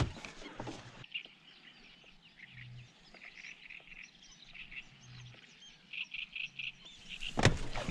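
Small animals calling outdoors in short high chirps, scattered at first and then in a quick run of several near the end, over a quiet background. Near the end a single loud knock or splash cuts in.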